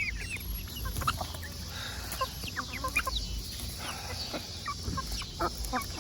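Backyard flock of hens clucking and squawking in many short, overlapping calls as they crowd in for mealworm treats.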